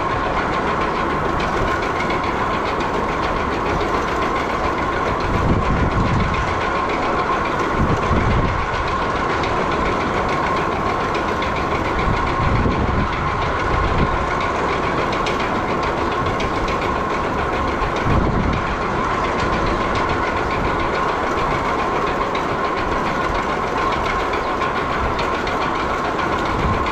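Steady drone of barn machinery running, with a constant whine through it and a few low thuds.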